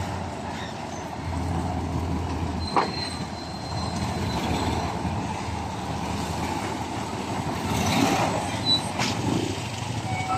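Ten-wheeler dump truck's diesel engine running as the loaded truck moves slowly, with a brief high squeal about three seconds in.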